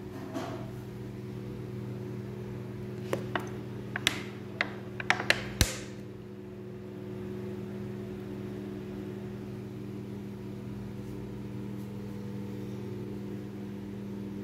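A plastic bottle handled against a steel plate: a quick series of sharp clicks and taps between about three and six seconds in, one knock the loudest. A steady low hum runs underneath throughout.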